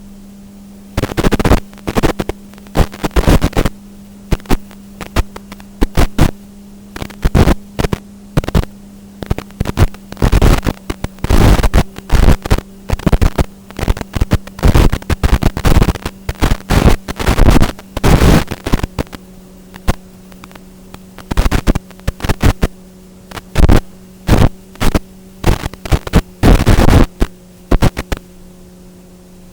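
Strong wind buffeting the microphone in irregular gusts, loud and rumbling, over a steady low hum.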